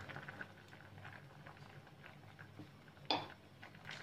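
A pot of tamarind dessert bubbling faintly at the boil, with a single sharp knock about three seconds in.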